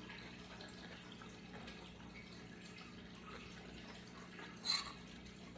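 Faint, wet chewing sounds of a person eating a mouthful of food, with a brief louder mouth sound about four and a half seconds in.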